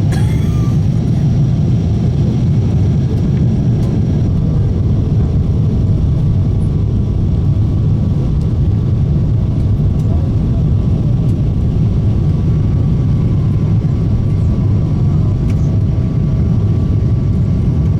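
Steady cabin roar of a Boeing 777-300ER in flight: deep engine and airflow noise heard from inside the cabin, with a faint steady whine above it.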